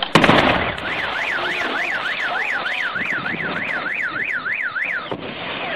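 A demolition charge at the base of a brick tower goes off in one sharp blast, followed by a rush of noise as the tower comes down. Straight after, a car alarm sounds, its tone rising and falling about three times a second, set off by the blast; near the end it switches to a repeated falling chirp.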